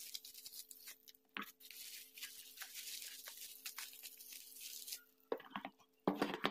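Faint crinkling and crackling of plastic bubble wrap being pulled off a jar by hand. Near the end come a few light knocks as jars are set down in a cardboard box.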